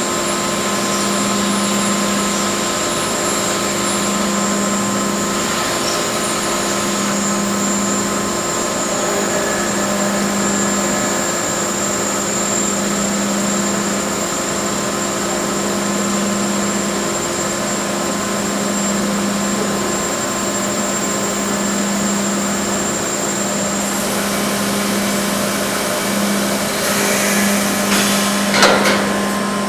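Mollart four-spindle gundrilling machine drilling 2 mm holes in a pellet die, its spindles at 12,000 RPM. It makes a steady machine hum with a low tone that swells and fades about every three seconds. Late on, a high whine cuts off and a few short clatters follow.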